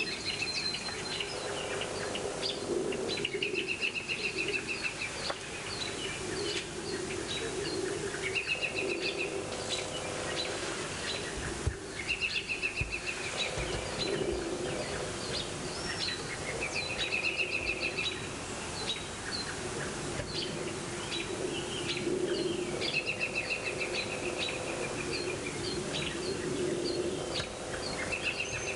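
Songbirds singing: one bird repeats a short trilled song about a second long every four to five seconds, with scattered high chirps from other birds, over a low steady background rumble.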